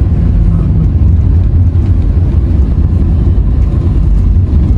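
Steady low rumble of a car driving, engine and road noise.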